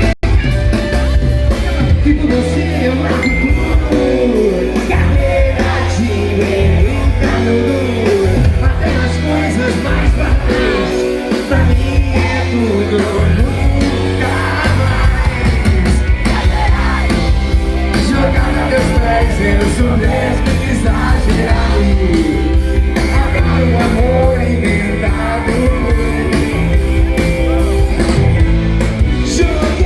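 A rock band playing a song with a singer, loud throughout over heavy bass and drums.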